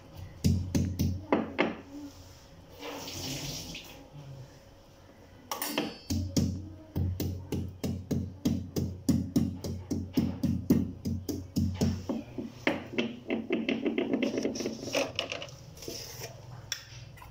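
Stone pestle pounding a garlic clove in a stone mortar (ulekan and cobek): repeated sharp knocks of stone on stone, about three a second, with a short pause partway through. Near the end the knocks give way to rougher rubbing strokes as the garlic is ground.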